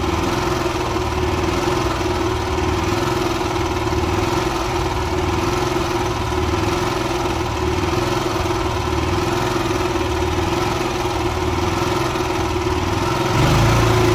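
Honda inverter generator's engine running steadily after its carburetor has been cleaned. About a second before the end it speeds up and gets louder.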